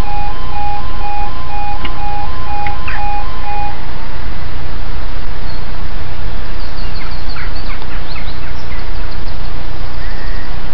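Level crossing yodel alarm sounding in alternating two-tone beeps, about two a second, that stop about four seconds in once the barriers are down. A loud steady rush of wind on the microphone runs throughout, with birds chirping in the second half.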